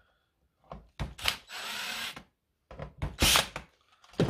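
Cordless drill/driver working a screw into the wooden mounting board. It runs in short bursts: a steady run between one and two seconds in, and a louder, shorter one just after three seconds, with a few knocks between.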